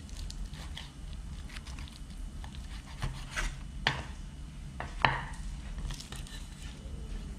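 Large chef's knife cutting through crisp pan-fried perilla leaf pancakes in rice-flour batter on a wooden chopping block: a string of crunchy cuts and sharp knocks of the blade on the wood, the loudest about five seconds in.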